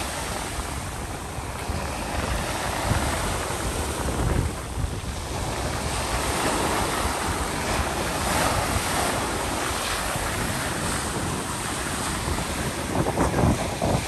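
Ocean surf breaking and washing up over a pebble beach, swelling every few seconds, with wind buffeting the microphone.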